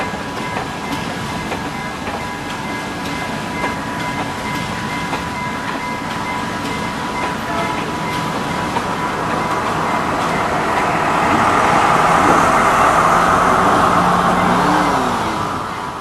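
Sri Lanka Railways Class S14 diesel multiple unit passing close by: coaches rolling past with clattering wheels, with a steady high tone in the background over the first half. The sound grows louder over the last few seconds as the power car goes by.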